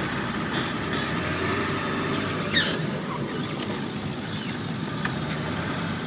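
4x4 truck driving, heard from inside the cab: a steady low rumble of engine and road noise. About two and a half seconds in comes one short, sharp sound that falls in pitch.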